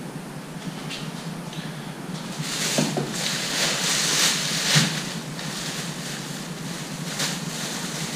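Thin plastic carrier bag rustling and crinkling as it is handled, in several bursts, strongest in the middle, over a steady low hum.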